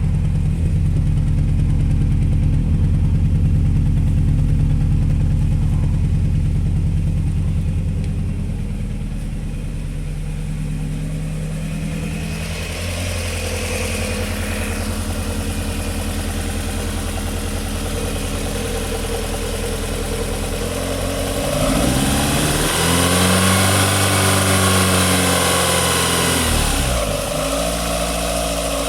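Fiat Panda engine running with a misfire, mostly at a steady idle. About two-thirds of the way through it is revved up and let back down over several seconds.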